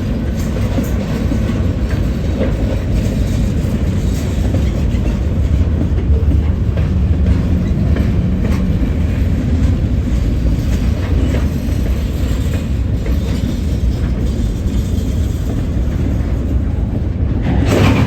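Train moving through a rail yard: a steady low diesel-locomotive rumble with the wheels clicking over rail joints.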